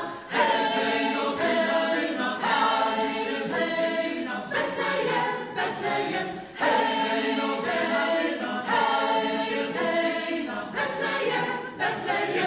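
Mixed choir of women's and men's voices singing a Polish Christmas carol a cappella in phrases, the last phrase ending and dying away at the very end.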